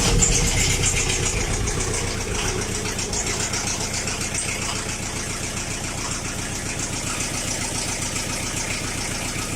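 Chrysler Voyager 2.5 turbodiesel just started after glow-plug preheating, its revs settling to a steady idle over the first couple of seconds. A light ticking from a hydraulic valve lifter runs under the idle; the owner says it is hardly a knock any more and puts it down partly to poor oil in the engine.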